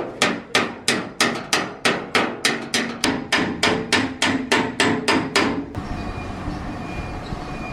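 Body hammer striking a car's sheet-metal panel in a steady run of about three blows a second, each with a short metallic ring, stopping about six seconds in: panel beating to work out a dent.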